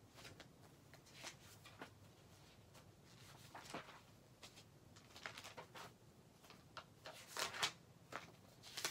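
Faint, scattered rustles and light clicks of small things being handled, loudest in a short cluster about seven and a half seconds in.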